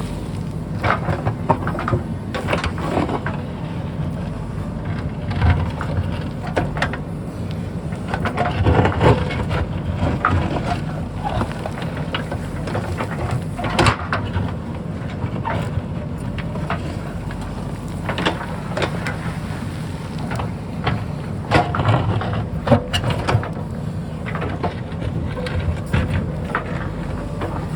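JCB backhoe loader's diesel engine running steadily under load, with irregular knocks and scrapes of the bucket digging into rock and soil.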